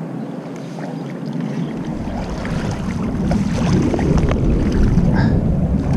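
Water sloshing and splashing around the legs of a person wading into a shallow river, with a low rumble of wind and movement on the body-worn microphone growing louder from about two seconds in.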